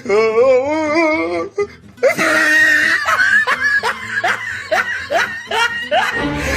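Horror sound effect played loud through a Bluetooth speaker: a wavering, quavering wail for about a second and a half, then a run of spooky laughter.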